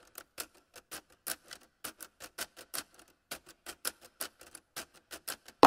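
A rapid run of sharp, dry ticks, about four a second and slightly uneven.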